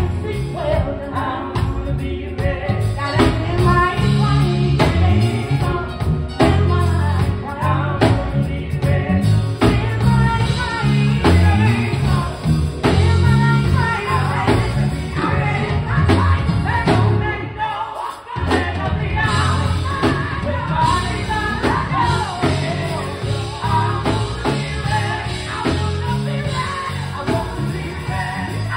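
Women's gospel vocal group singing in harmony with a live band of drum kit, bass guitar and keyboard. The band drops out briefly about two-thirds of the way through, then comes back in.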